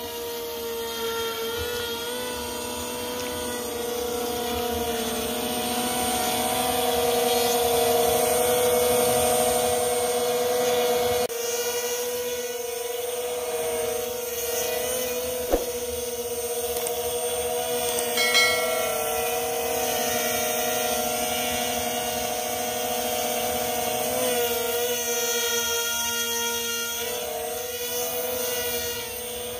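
Electric motor and propeller of a JJRC M02 RC model plane buzzing steadily in flight and in a nose-up hover, the pitch wavering slightly with the throttle. A couple of brief clicks partway through.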